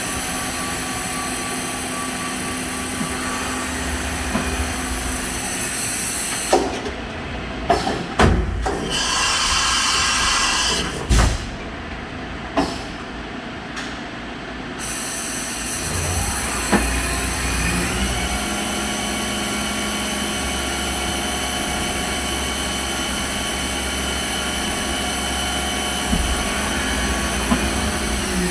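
Fadal 914-15 (VMC 15XT) CNC vertical machining center running, a steady whine and hum of its motors. Several knocks and clunks come in the first half, along with a few seconds of hiss, and a new set of steady tones starts about two-thirds through.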